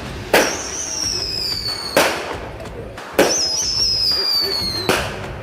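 Fireworks going off: four sharp bangs spaced about one to two seconds apart. After the first and the third, a high whistle slides slowly down in pitch until the next bang.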